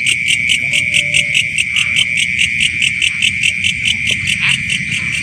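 Crickets chirping in a loud, steady night chorus: a shrill trill pulsing about seven times a second.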